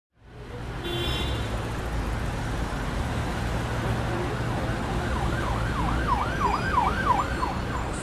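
City street traffic noise with a steady low rumble. An emergency-vehicle siren yelps in rapid up-and-down sweeps, about three a second, from about five seconds in. A brief high beep sounds about a second in.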